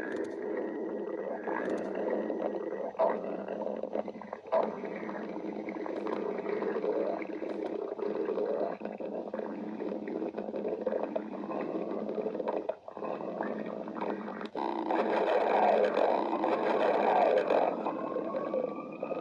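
A person's stomach growling in a long continuous rumble that swells louder about fifteen seconds in, with two brief knocks near the start.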